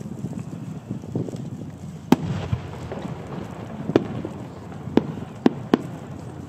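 Aerial firework shells, No. 8 (about 24 cm) chrysanthemum shells, bursting high overhead as five sharp bangs over a low rumble. The loudest comes about two seconds in, and four more follow between about four and six seconds.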